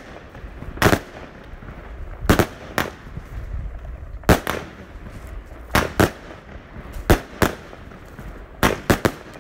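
J-fireworks Lumberjack firework compound firing shots into the air: about eleven sharp bangs at uneven intervals, roughly one a second, with a few coming in quick pairs near the end.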